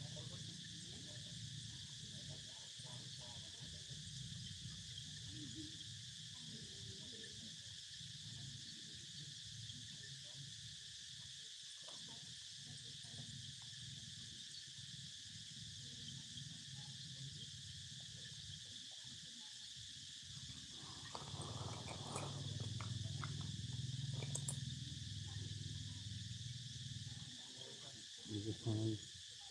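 Steady, unbroken insect chorus, two high droning tones held throughout. Under it, low rumbling noise that swells for a few seconds past the middle, and two brief thumps just before the end.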